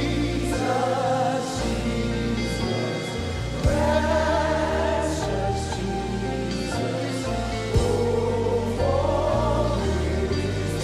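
Live gospel worship music: voices singing together over a band with a steady bass, with two sharp percussive hits, about four and eight seconds in.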